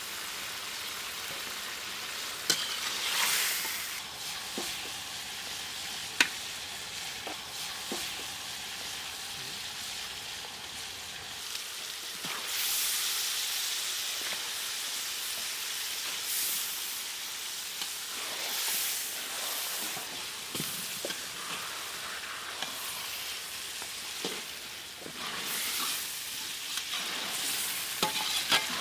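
Fish pieces sizzling as they fry in oil in a large metal wok, the hiss swelling and easing several times. A steel spatula scrapes and clicks against the pan now and then.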